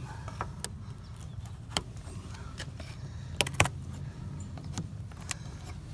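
Window side stop being pried out of its kerf-and-barb friction fit, giving a few sharp clicks and snaps, loudest about three and a half seconds in, over a low steady hum.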